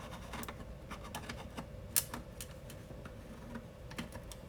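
Irregular small clicks and scrapes of a 3D-printed plastic nut being fiddled onto its thread by hand, catching on a rough first layer of the printed threads; one sharper click about two seconds in.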